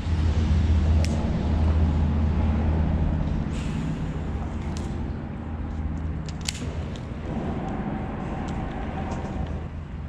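Low, steady rumble of road traffic crossing the bridge overhead, heard from underneath, with a few sharp knocks and clicks from the kayak and fishing tackle.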